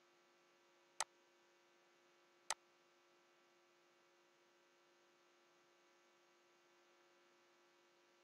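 Two sharp computer mouse clicks, about a second in and again a second and a half later, over a faint steady hum.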